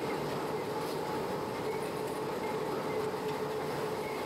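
Running noise of a historic SBB BDe 4/4 electric railcar climbing under power, heard from its driver's cab: a steady rolling noise of wheels on rail with a steady electric hum over it.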